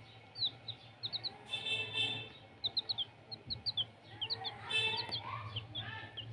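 Chicks peeping: a continuous run of short, high, falling peeps, with a couple of louder, longer calls about a second and a half in and again near five seconds.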